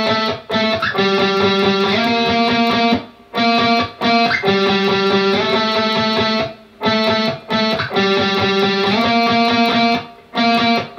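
Electric guitar playing a single-note rock riff fretted with one finger: notes repeated in groups, stepping between a few frets in an odd-timed rhythm. The phrase comes round about every three and a half seconds, with a short break between repeats.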